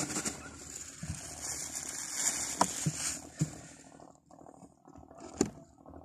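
A few light knocks and handling sounds on a small fishing boat, the loudest near the end, over a steady hiss that fades about four seconds in.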